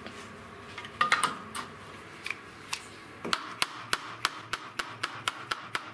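Sharp metallic taps at a square profile pipe and its clamp: a few scattered knocks, then about halfway through an even run of taps, about three a second.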